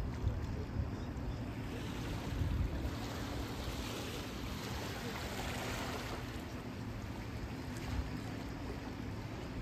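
Harbor ambience: a low wind rumble on the microphone and a faint steady hum. A rushing wash swells up about two seconds in and dies away again a few seconds later.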